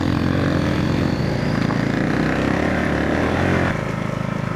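Motorcycle engine running steadily while riding, easing down a little about three and a half seconds in.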